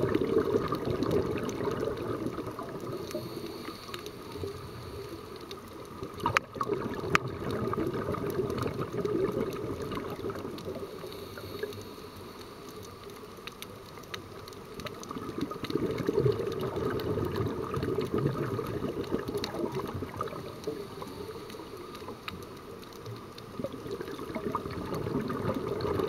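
Scuba diver's breathing heard underwater through the camera housing: gurgling bursts of exhaled regulator bubbles that swell and fade about every eight seconds. Two sharp clicks about six and seven seconds in.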